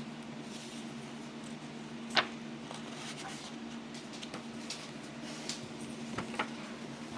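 Handling of a picture book during a pause in reading: a sharp click about two seconds in and a few softer ticks near the end, over a steady low electrical hum.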